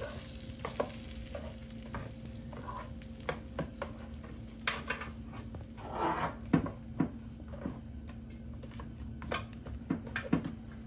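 Lamb chops being turned over on a hot grill tray: scattered clicks and scrapes of a utensil against the tray with light sizzling, over a steady low hum.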